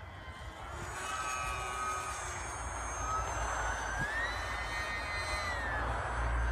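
Electric motor and propeller of a ParkZone UMX Icon A5 micro RC plane whining as it flies overhead, the pitch rising about halfway through and easing back down. Low wind rumble on the microphone, heavier near the end.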